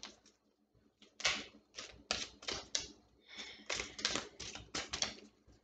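Tarot cards being shuffled by hand: a quick, even run of short slapping swishes, about three to four a second, starting about a second in.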